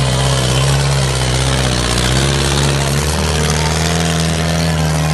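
Tractor diesel engine running hard under load as it drags a disc harrow through soft dirt, its engine note stepping up slightly about three seconds in.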